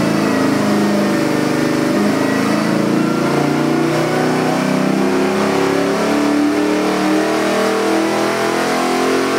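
LS 427-cubic-inch V8 crate engine running under load on an engine dynamometer during a sweep test. The revs climb steadily from about 3,300 to about 5,000 rpm, and the engine note rises with them.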